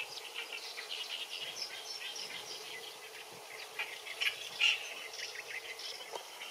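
Wild birds chirping and singing in a quick, dense run of short notes, loudest about four seconds in, over a faint steady background hiss.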